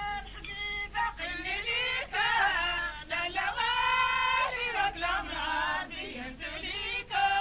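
A voice singing a melody, moving through bending, gliding notes, some of them held for about half a second or more.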